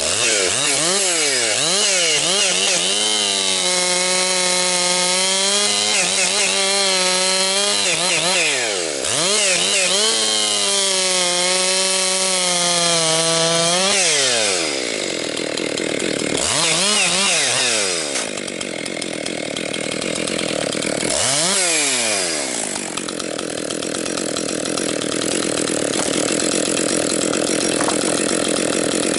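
Husqvarna 262XP two-stroke chainsaw bucking firewood: it revs up and holds high revs through two long cuts, its pitch wavering slightly under load. Then it drops back, blips the throttle twice and runs on at low speed near the end.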